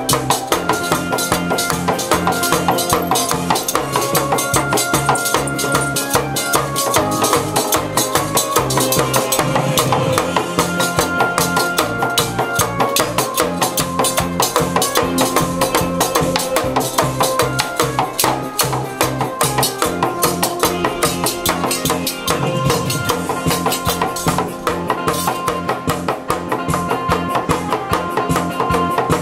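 Music with a steady, driving drum beat under held melody notes.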